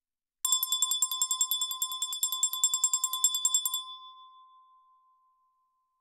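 A small bell rung close to the microphone, struck in a quick, even run of many rapid strokes for about three seconds. The strokes then stop and a high, clear ring fades away.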